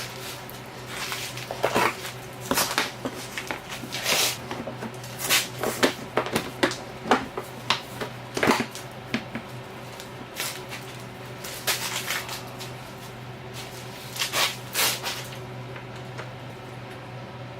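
Irregular metallic clinks, taps and knocks of hand work on a dirt bike exhaust, as an aftermarket shorty silencer is fitted and its bolts handled, over a steady low hum.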